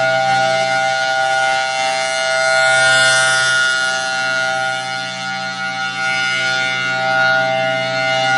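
Federal Signal Thunderbolt 1003 outdoor warning siren sounding its Full Alert: a loud, steady, unwavering tone held at full pitch. Its loudness swells and fades slowly as the siren head rotates.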